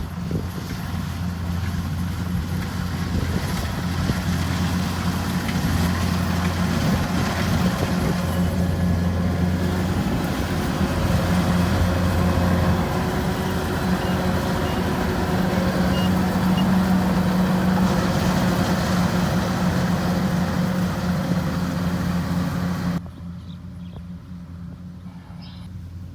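Rice combine harvester's diesel engine running steadily with a deep, even hum, then the sound drops abruptly to a much quieter level about three seconds before the end.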